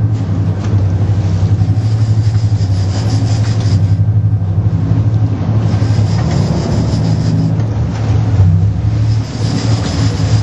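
Sportfishing boat's engine running steadily with a deep, pulsing drone. A thin high whine comes and goes three times over it.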